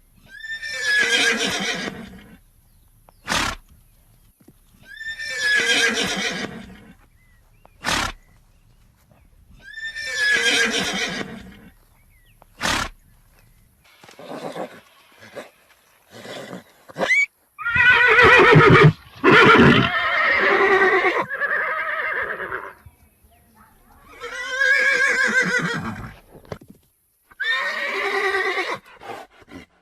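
Horses neighing: three near-identical whinnies about five seconds apart, each about two seconds long, with a sharp click between each, then a run of varied neighs and whinnies, loudest a little past the middle.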